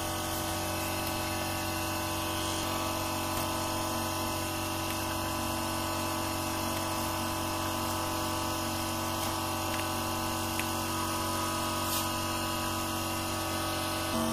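Small speaker of a homemade Bluetooth amplifier giving off a steady electrical hum made of several held tones, the amplifier idling with no phone yet paired to it.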